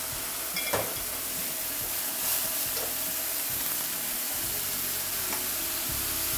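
Food sizzling steadily in a hot frying pan, with a utensil clicking against the pan a few times.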